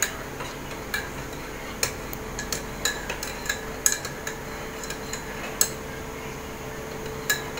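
Eating utensils clinking against a plate in irregular sharp taps while eating, over a faint steady hum.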